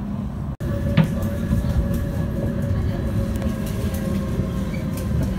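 Inside a running Edinburgh tram (CAF Urbos 3): a steady low rumble of wheels on rail, with a thin, steady electric whine over it. The sound cuts out for an instant about half a second in, and there is a single click just after.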